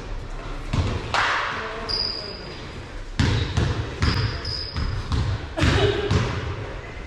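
Basketball being dribbled on a gym court floor, with thumps about two or three a second in the second half, brief sneaker squeaks, and players calling out in the large hall.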